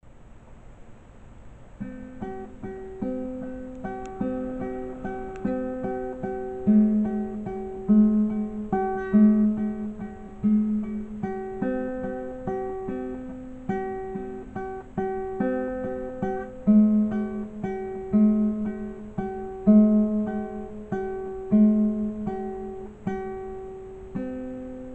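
Background music: acoustic guitar picking a repeating pattern of chords with a steady pulse.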